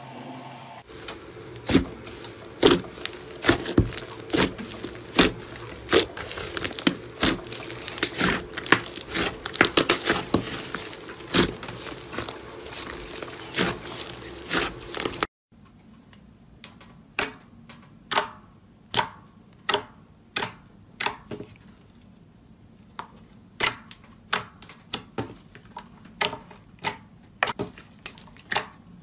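Slime being squeezed and poked, making many crackling clicks and pops. About halfway through there is an abrupt change to a quieter clip of separate sharp pops, one or two a second.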